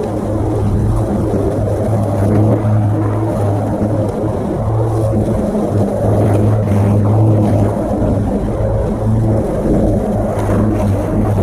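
Greenworks cordless battery lawnmower running, its electric motor and blade giving a steady hum that sags briefly a few times as it mulches dry leaves.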